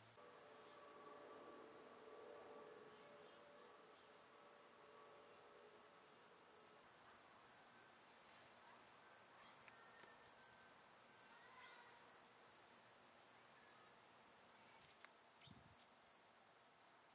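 Very faint outdoor ambience: insects chirping in a steady rhythm, about three chirps a second, over a faint steady hiss.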